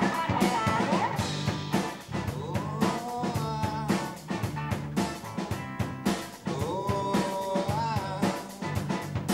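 Small rock band playing live: drum kit keeping a steady beat under electric guitar and bass guitar.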